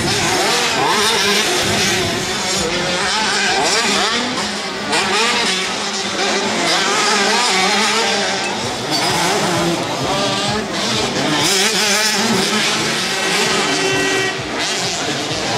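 Several motocross motorcycles revving and accelerating around the track, their overlapping engine notes rising and falling in pitch as the riders open and close the throttle.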